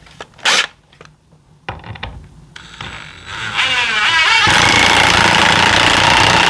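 Cordless impact driver driving a lag bolt through a barn-door strap hinge. There is a sharp click about half a second in. From about three seconds the motor whirs up with a rising pitch, then the impact mechanism hammers loudly and steadily through the last two seconds.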